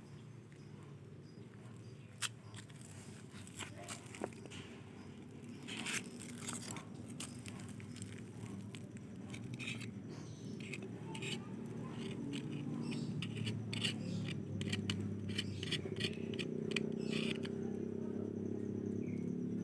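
Suzuki Carry Futura injection engine running with a vibration noise at the oil filter: irregular sharp clicks and ticks over a low hum that gets louder about halfway through. The owner puts the noise down to lack of maintenance.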